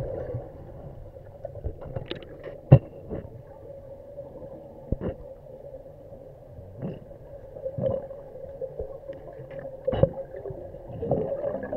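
Underwater sound in a deep diving pool, heard from a descending diver: a steady hum with scattered short clicks and knocks, the sharpest about three seconds in and near ten seconds.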